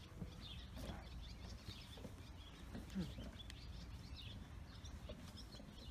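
Faint outdoor ambience: a low steady rumble with a few light knocks and faint bird chirps.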